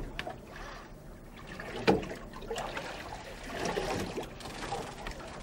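Sea water lapping and trickling against the side of a small boat, with a single sharp knock about two seconds in.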